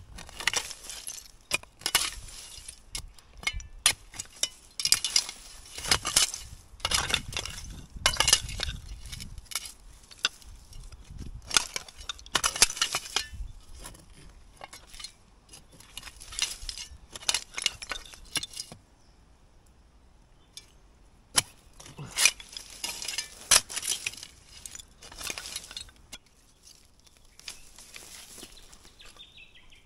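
Old glass bottles and broken glass clinking and scraping against each other as they are picked through, in irregular bursts of sharp clinks. There is a short lull a little past halfway, and the clinks are quieter near the end.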